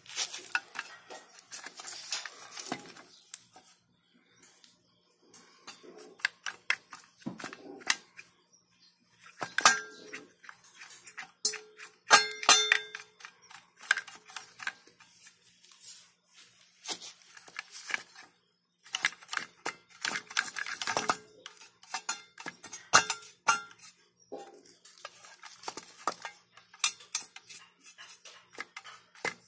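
Sheet-metal casing of a computer power supply being handled and taken apart: irregular metallic clicks, knocks and clatter, some ringing briefly.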